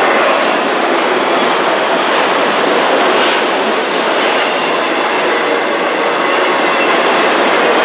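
Autorack cars of a passing freight train rolling by close up: a steady, loud noise of steel wheels running over the rails, with a brief sharper clatter about three seconds in.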